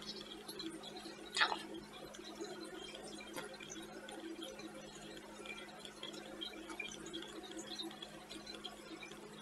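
Fish tank water filter running, a steady low hum with a faint bubbly trickle, with one brief louder sound about a second and a half in.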